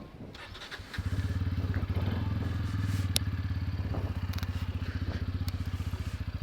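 Motorcycle engine starting about a second in, then idling steadily with an even, rapid low pulsing.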